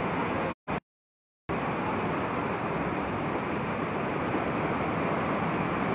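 Steady rushing noise of heavy typhoon rain and wind over floodwater, with no distinct events; the sound cuts out completely for about a second near the start.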